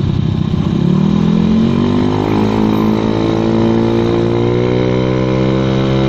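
Honda Vario 110 carburettor scooter's single-cylinder four-stroke engine, heard through an AHM standard racing exhaust while riding. About a second in the throttle is pulled a little and the revs rise, then hold steady at the higher pitch.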